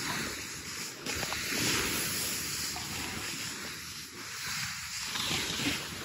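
Wind rushing over the phone's microphone, together with the steady hiss of snow sliding underneath, during a descent down a ski slope.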